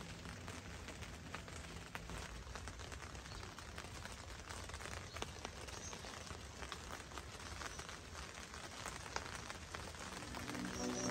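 Rain falling, heard from inside a tent: a steady hiss with scattered drops ticking at irregular moments.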